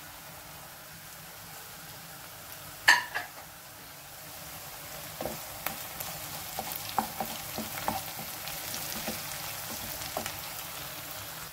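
Sliced onions and whole spices sizzling steadily in hot oil in a frying pan. A sharp knock comes about three seconds in. From about five seconds on, a wooden spatula stirs and scrapes the pan with light clicking taps, and the sizzle grows louder.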